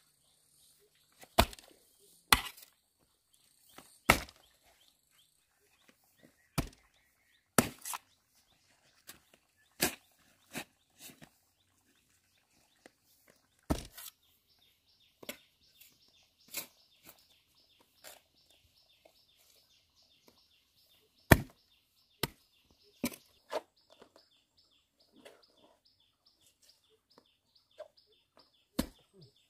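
Sharp chopping strikes, irregularly spaced about one to two seconds apart, some louder than others. A faint high chirping comes in about halfway through.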